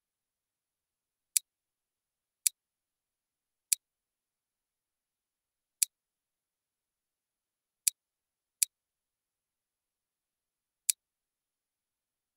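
Seven sharp computer mouse clicks at uneven intervals, each about equally loud, with dead silence between them.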